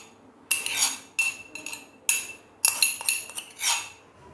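Metal kitchen utensils clinking and scraping against a metal sieve and bowl while pounded tulsi-leaf pulp is strained. There are about eight short strokes, each with a brief metallic ring.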